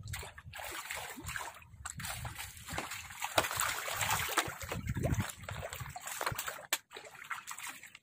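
Trapped fish jumping and flapping in shallow water: a run of irregular splashes and splatters, busiest in the middle.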